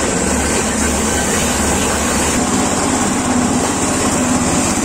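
Small 7 hp stationary engine running steadily, driving a cylinder coconut grater with a 50 cm grating roll as it grates coconut.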